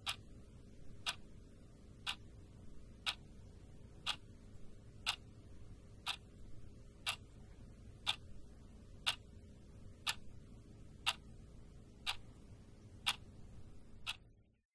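Wall clock ticking steadily, one tick a second, the ticks stopping just before the end.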